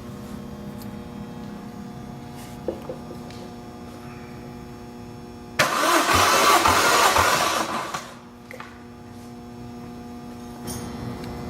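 Toyota 1JZ twin-turbo inline-six engine cranked over by its starter for about two seconds during a compression test, cutting off suddenly. A steady low hum runs underneath.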